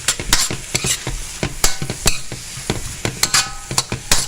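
A utensil stirring and scraping garlic and onions sizzling in olive oil in a wok: a quick, uneven run of scrapes and clicks over the frying hiss, with a couple of brief rings near the end.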